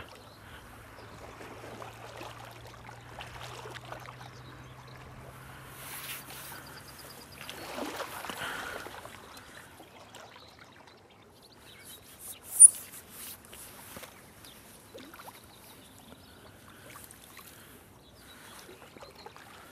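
Water splashing and trickling as a landing net holding a bream is lowered into shallow lake water and the fish is released. One sharp knock comes about two-thirds of the way through.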